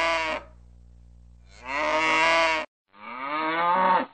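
Cattle mooing: three moos of about a second each, the pitch swelling and then sagging, each cut off abruptly.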